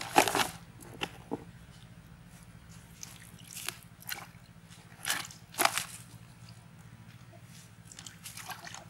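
Leaves and dry leaf litter rustling and crunching in short, irregular bursts as they are handled and trodden by bare feet, loudest just after the start, over a faint steady low hum.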